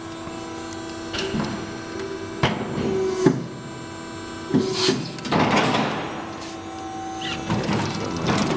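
A steady hum with irregular knocks, clunks and rattles; the sharpest knock comes about three seconds in.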